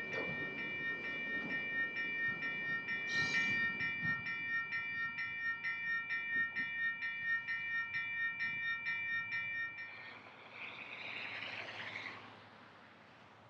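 Railroad grade-crossing warning bell ringing rapidly, about three strikes a second, over the rolling noise of a passing autorack freight train. The bell stops about ten seconds in, followed by about two seconds of fainter rail noise with shifting high squealing tones.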